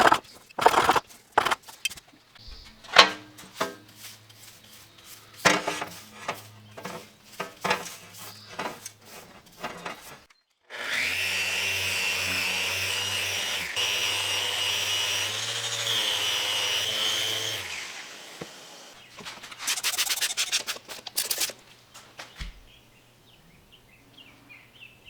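Woodworking on black walnut: irregular scraping and tapping strokes of hand tools on the wood, then a small power tool runs steadily with a high whine for about seven seconds, followed by a quick run of rasping strokes.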